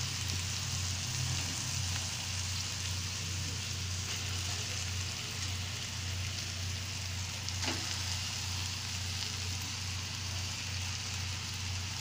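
Chopped vegetables sizzling steadily in hot oil in a steel kadai, over a low steady hum. A single light knock about eight seconds in.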